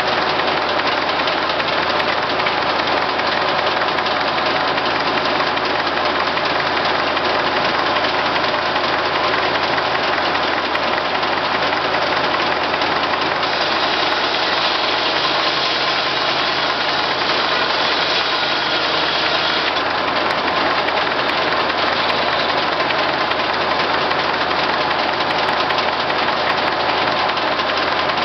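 Case six-cylinder power unit running steadily, driving a circular sawmill, with a brighter hiss joining for about six seconds midway.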